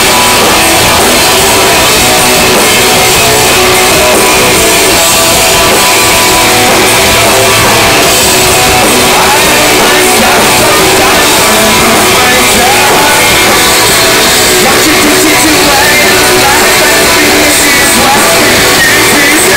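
Live rock band playing loud, with distorted electric guitar, drums and vocals. It is recorded close on a phone, so the sound is heavily overloaded and flattened.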